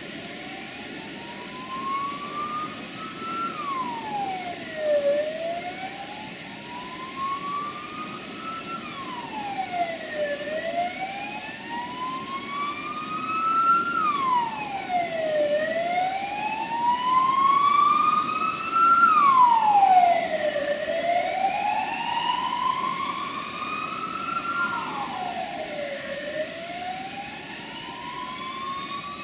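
Emergency vehicle siren wailing: each cycle climbs slowly in pitch for about four seconds and then drops quickly, repeating about every five seconds. It grows louder toward the middle and fades again toward the end.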